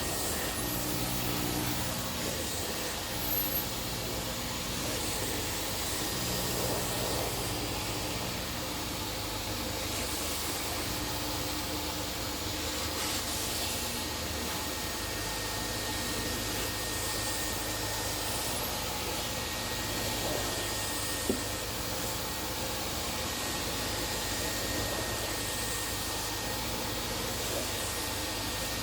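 Hot-water carpet extractor's vacuum motor running steadily, a continuous rushing hiss with a low hum and a faint high whine.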